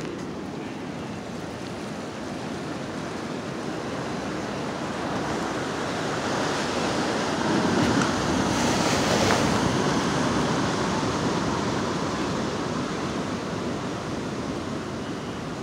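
Ocean surf washing below a pier: a steady rush of breaking waves that swells to a peak about eight to nine seconds in, then slowly dies back.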